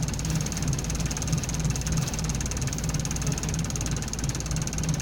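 Scania L94UB city bus's diesel engine running steadily, heard from inside the passenger cabin as a low, evenly pulsing drone with a faint steady high whine above it.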